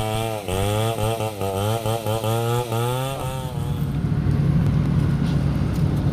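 Two-stroke chainsaw cutting into a large log, its engine note dipping in pitch again and again as the chain bites under load. About three seconds in the cutting note stops and the saw drops to a low, rough idle.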